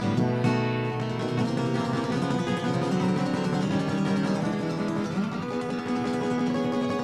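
Acoustic guitar playing an instrumental passage of a live song, dense plucked and strummed notes with no singing.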